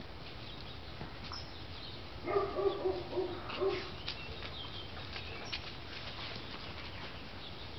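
A poodle whining, a quick run of about five short whines about two seconds in, excited at a squirrel it is trying to reach.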